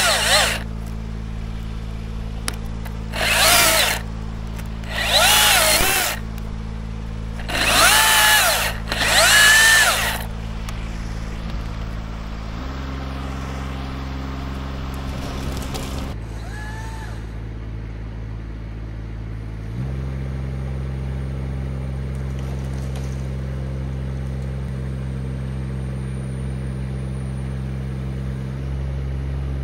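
Chainsaw revving in four short bursts over the first ten seconds, over a steady engine hum that shifts to a new speed a few times later on.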